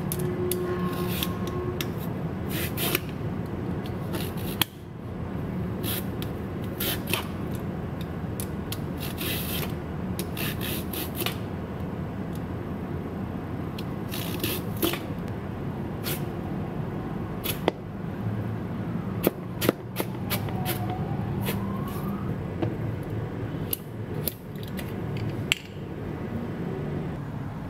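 A julienne peeler shredding a carrot into thin strips on a cutting board: irregular runs of short scraping strokes, with a steady low hum underneath.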